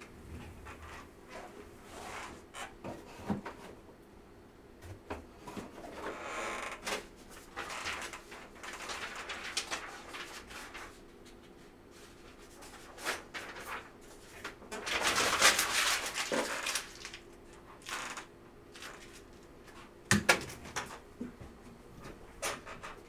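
Handling noises: scattered clicks and knocks and a few longer rustling stretches, the loudest about two-thirds of the way through, over a faint steady hum.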